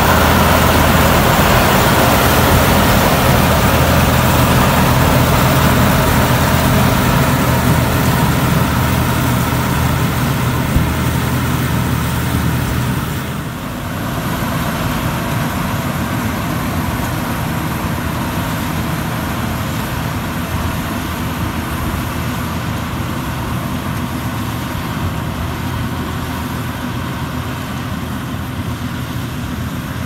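Crawler combine harvester running steadily as it cuts and threshes rice, a close, loud engine drone. About 13 seconds in the sound drops and turns more distant and hissy as the machine is heard from farther across the field.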